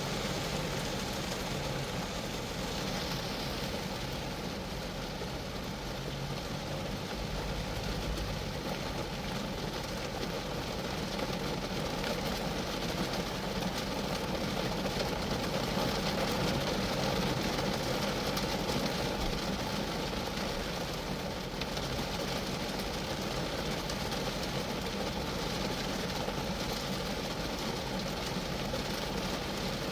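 Steady rain falling on a Geo Metro car, a dense, even wash of drops hitting the car body.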